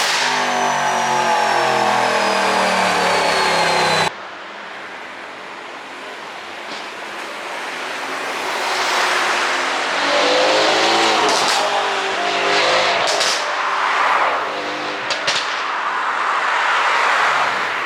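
Mercedes-AMG C63 S coupe's 4.0-litre twin-turbo V8 running through an Akrapovic exhaust: revs falling away for about four seconds, then after a sudden drop in level the engine revs up again and gives several sharp exhaust pops, about 11, 13 and 15 seconds in, the overrun pops set up by an ECU tune.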